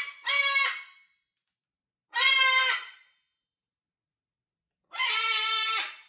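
Macaw squawking: loud, harsh calls, each under a second, spaced a couple of seconds apart, the last one the longest.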